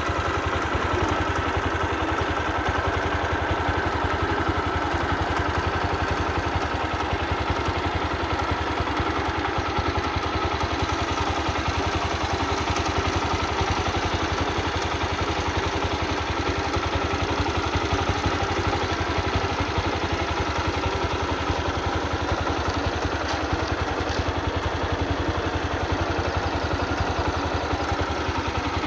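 Engine idling steadily with a fast, even pulse that does not change throughout.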